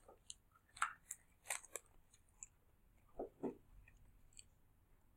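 Faint eating sounds from a hard candy lollipop: a scatter of sharp clicks and cracks as the candy is bitten and knocks against teeth, then two duller knocks a little past the middle.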